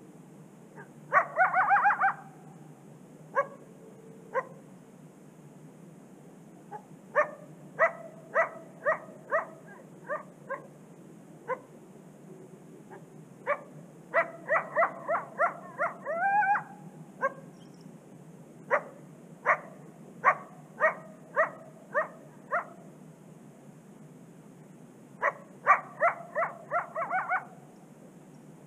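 A coyote barking in repeated bouts of sharp barks and yips, some in quick clusters and some spaced out about two a second, with one barking call drawn out into a short rising howl about halfway through.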